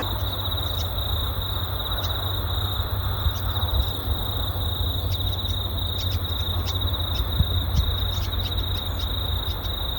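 Insects trilling steadily at a high pitch, over a low steady rumble.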